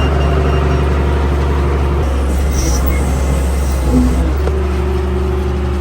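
Backhoe's diesel engine running loud and steady at high revs while its hydraulics are worked to lift and move the machine, on freshly reattached, only finger-tight hydraulic hoses that may leak. The engine sound drops away near the end.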